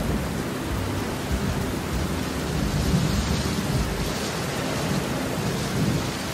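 Steady hiss of heavy rain falling, with low rumbles of thunder underneath.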